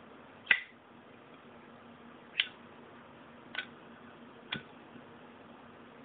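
Zippo lighter's hinged metal lid and flint wheel clicking: four sharp metallic clicks over about four seconds, the first the loudest.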